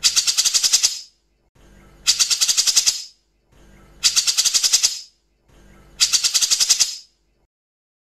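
Cucak jenggot (grey-cheeked bulbul) giving its harsh, rattling 'tembak' call: four bursts of about a second each, roughly two seconds apart, each a fast run of high rasping notes.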